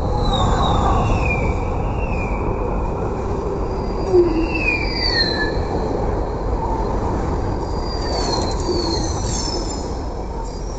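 Coal train rolling past overhead: a steady rumble of wheels on rail with high-pitched wheel squeals that slide down in pitch again and again. A short knock about four seconds in.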